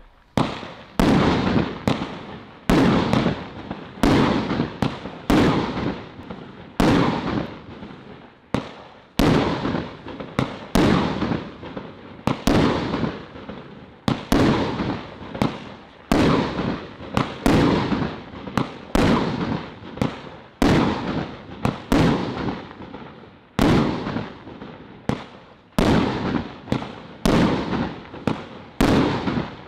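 Celtic 'Purple Plums' multi-shot firework cake firing: a steady run of shots, about one a second, each a sharp bang that fades away over about a second.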